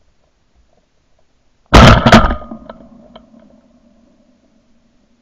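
Shotgun firing: two loud reports about half a second apart, followed by a ringing tail that fades over about two seconds.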